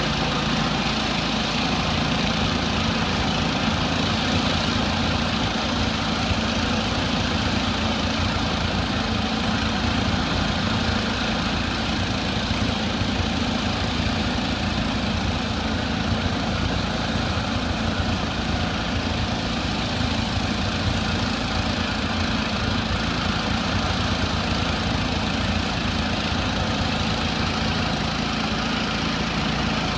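Pressure washer running steadily at a constant engine speed, with the hiss of its high-pressure water spray on concrete.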